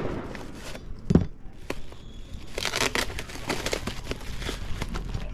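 Plastic-and-packing-tape parcel crinkling and crackling as it is handled and cut open with a knife, with a single thump about a second in and a dense burst of crinkling a little past halfway.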